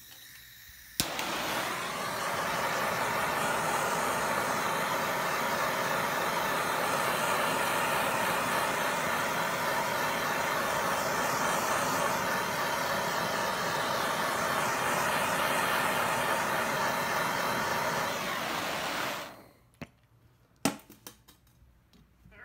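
Handheld blowtorch lit with a click about a second in, then burning with a steady rushing hiss for about eighteen seconds, heating a steel fender lip to soften it before rolling; the flame shuts off suddenly, followed by a few sharp knocks.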